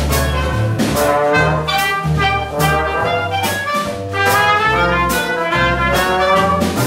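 Traditional jazz band playing an instrumental passage: trumpet, trombone and clarinet weave their lines together over a steady beat of drums and cymbals and a walking bass guitar.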